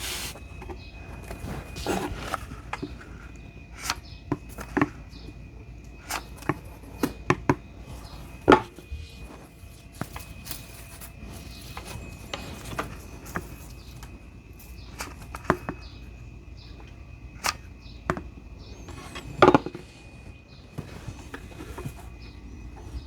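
Cylindrical lithium-ion battery cells (18650s) clicking and knocking against each other and the workbench as they are handled and arranged into a pack. The knocks come at irregular intervals, with a few louder ones, over a faint steady high whine.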